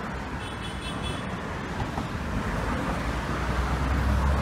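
Steady outdoor city traffic noise, with a low rumble that swells near the end.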